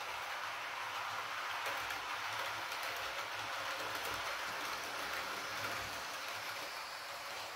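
Model Class 312 four-car electric multiple unit running on model railway track under DCC control: a steady, even running noise from the wheels and motor.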